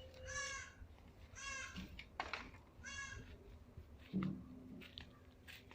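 A young goat bleating three times, short quavering calls about a second and a half apart, with a brief low thump about four seconds in.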